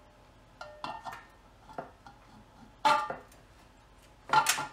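Steel ring gear and flexplate clinking and clanking against the crankshaft flange and locking tool as they are worked into place on a Nissan VK45DE V8: a few light ringing clinks in the first second, a louder clank about three seconds in, and a louder run of clanks near the end.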